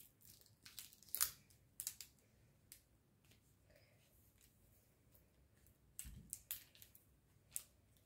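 Faint, scattered crackles and crinkles of the plastic protective film on a diamond painting canvas as it is handled. There is a cluster of short rustles about a second in and another around six seconds in.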